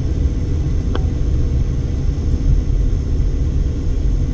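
Low, steady rumble of road and engine noise inside the cabin of a moving Mercedes-Benz car, with a short click about a second in.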